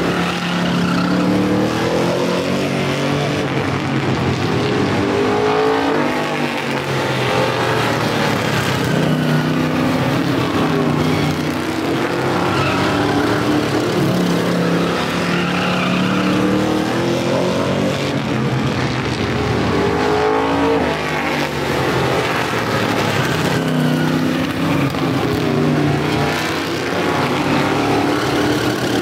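Street stock race cars running laps on a paved oval, several engines overlapping, their pitch rising and falling again and again as they accelerate and lift.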